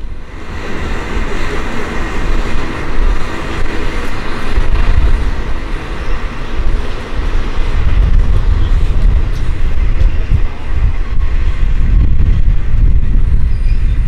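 Kanto Railway Joso Line diesel railcar approaching on the track, its low engine and rail rumble building from about halfway through and staying loud.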